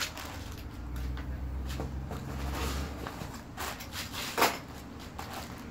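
Plastic-wrapped bundles of disposable face masks rustling and crinkling as they are lifted out of a cardboard box, with one sharp, loud crack about four and a half seconds in.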